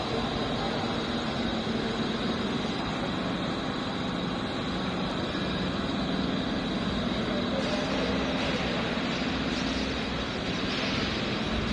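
Steady, loud drone of a biomass steam boiler plant's machinery running, a constant low hum with a thin high whine over a noisy mechanical rush.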